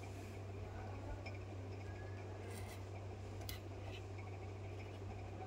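Faint rubbing and scraping of hands working over a phone's back frame, with a few light clicks, over a steady low hum.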